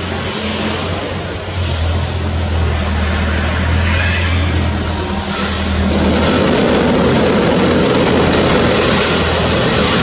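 Regional passenger train approaching along the station platform: a steady low hum with a broad rushing noise that grows louder from about six seconds in.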